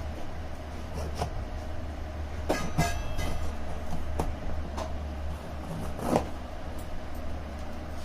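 A cardboard shipping box being worked open by hand: scattered scrapes, taps and crinkles, busiest about two and a half seconds in, over a steady low hum.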